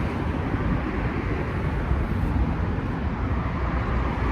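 Steady low rumble and hiss of vehicle noise, without distinct knocks or clicks.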